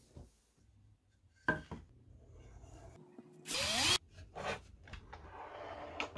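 Wooden boards and a wooden tray being handled: a few sharp knocks and light rubbing of wood on wood, with a short, louder scraping burst about halfway through that carries a rising whine.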